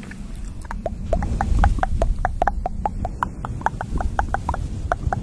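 Close-miked ASMR sounds: a makeup brush worked over the microphone, giving a low rustling rumble, with a quick run of small sharp clicks, about six or seven a second, starting about half a second in.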